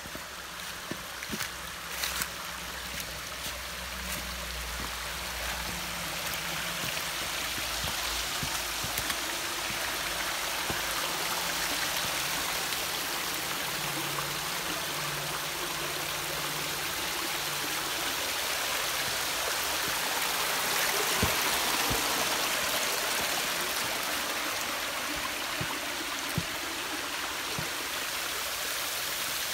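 Shallow creek water running and splashing over flat rock ledges, a steady rush that grows louder over the first dozen seconds, with a few faint knocks now and then.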